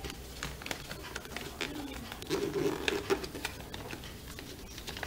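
A sheet of A4 paper being folded by hand into a paper airplane: the paper rustles, with sharp crease clicks throughout. A short low hum-like sound comes in about two and a half seconds in.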